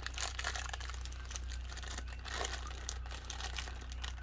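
Plastic packaging of a Happy Meal toy crinkling and crackling continuously as it is handled and pulled at, with a steady low hum underneath.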